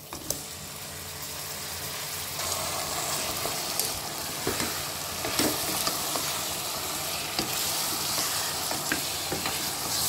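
Pressure-cooked mutton pieces sizzling in hot oil and ghee in a pot as they are added and stirred with a wooden spatula. The sizzle builds over the first couple of seconds and then holds steady, with a few sharp clicks of the spatula against the pot.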